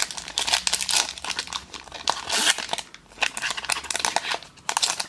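Foil wrapper of a Pokémon trading card booster pack crinkling and tearing as it is ripped open by hand, a dense run of crackles with a louder rip about two and a half seconds in.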